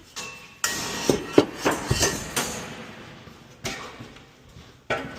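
Hard objects knocking and clattering as junk is shifted and dropped: a burst of several sharp knocks about half a second in, then two single knocks near the end.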